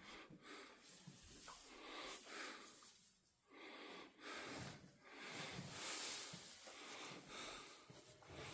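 Faint, repeated breaths of a cow, a swell of noise every second or two, as she tends her newborn calf.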